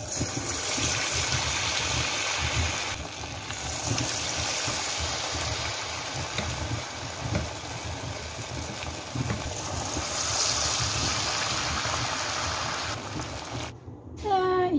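Battered banana pieces sizzling and crackling in hot frying oil, a dense, steady frying sizzle that cuts off suddenly near the end.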